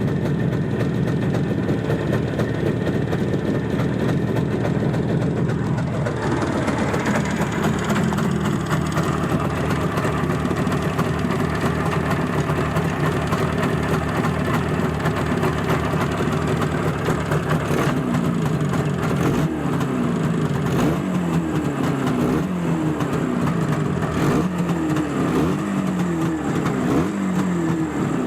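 Izh Jupiter-5 air-cooled two-stroke twin motorcycle engine running on its first test start after a piston-group rebuild, idling at first, then revved, with a string of short throttle blips in the second half. The run is to check for the ringing ("звон") from the piston group that the mechanic blames on the pistons' faulty geometry.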